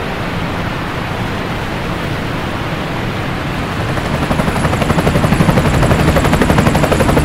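A steady rushing noise, joined about four seconds in by the fast, even beating of helicopter rotor blades, which grows louder.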